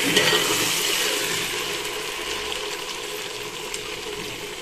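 Sliced okra and onions sizzling as they fry in an aluminium pot, gradually growing quieter, with small clicks of a metal spoon against the pot as they are stirred. The okra has fried until its slime has cooked off.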